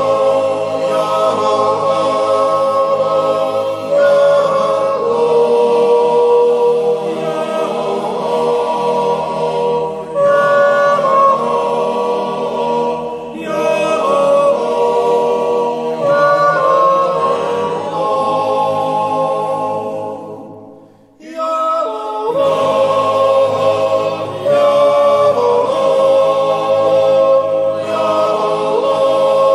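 Swiss yodel club choir singing a cappella in held chords. The singing dies away about twenty seconds in and starts again a second or so later.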